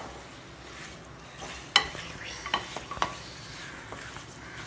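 Mutton head pieces sautéing in onion-tomato masala in a pressure cooker pot. A spatula stirs and scrapes through them, knocking sharply against the pot a few times over a steady sizzle.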